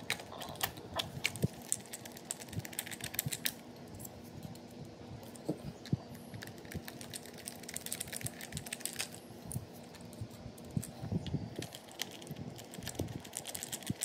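Screwdriver driving screws into the plastic handle housing of a string trimmer: a run of small, irregular clicks and taps.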